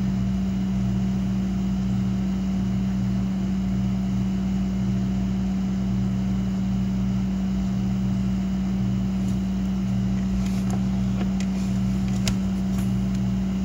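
Bare subwoofer driver, powered by an AudioPipe APHD-30001 car amplifier on the repair bench, playing a steady low tone with a lower bass note pulsing on and off beneath it. This is a playback test of the repaired amp.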